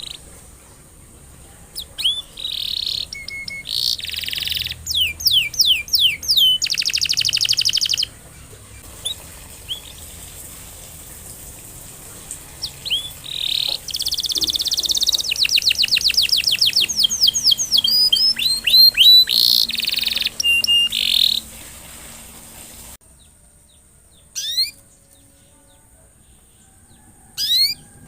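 Domestic canary singing its song of rapid trills, rising whistled sweeps and rolling notes, in two long phrases. The song stops about 23 seconds in, leaving only a few short chirps.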